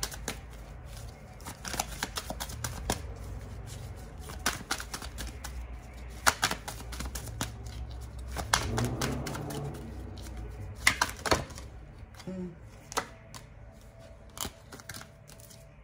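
Tarot cards being shuffled and handled, making irregular clicks and snaps of card stock.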